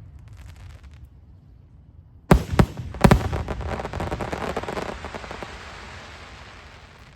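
Fireworks: three sharp bangs a little over two seconds in, followed by a dense crackling that fades away over a few seconds.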